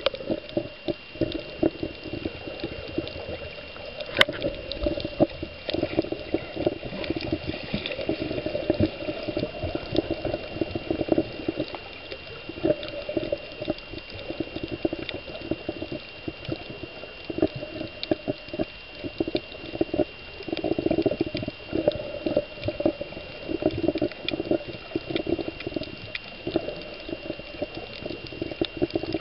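Muffled water sloshing and bubbling around a camera held underwater, surging irregularly, with many small clicks and a faint steady high tone throughout.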